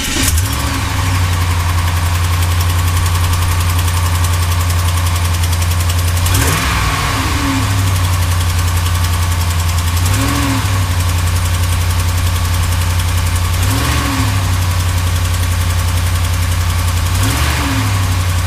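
Dodge Ram HEMI V8 idling just after starting, with a slight ticking from an exhaust manifold leak past a snapped manifold stud on the driver's side, a tick that seals up once the engine heats up. Four times the engine speed briefly rises and falls.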